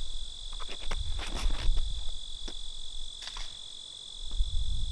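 Steady high-pitched chorus of insects, with a few short clicks and scuffs in the first three seconds.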